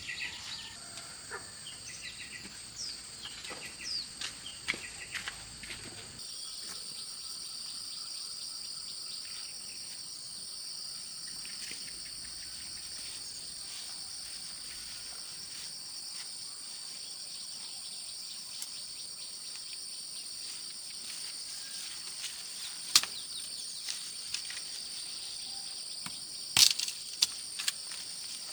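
Insects, likely cicadas or crickets, keep up a steady high-pitched drone, with short bird chirps over it for the first several seconds. A few sharp knocks or clicks come near the end, the loudest single one about twenty-three seconds in and a quick cluster a few seconds later.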